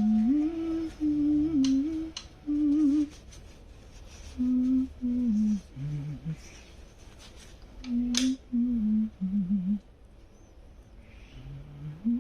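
A person humming a slow wordless tune in short phrases with pauses between them; a sharp click about eight seconds in.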